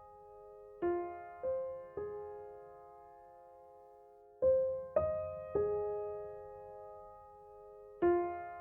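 Slow, gentle piano music: notes struck in groups of three about half a second apart, each left ringing and fading, with pauses of a couple of seconds between the groups.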